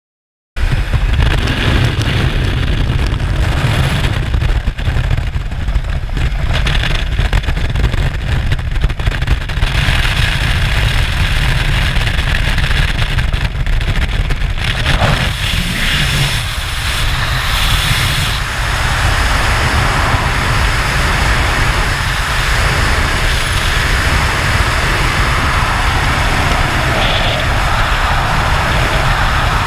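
Wind blasting across a helmet camera's microphone with a deep, heavy rumble: first the engine and slipstream at the open door of a high-wing jump plane, then, after the exit about halfway through, the steady rush of freefall wind.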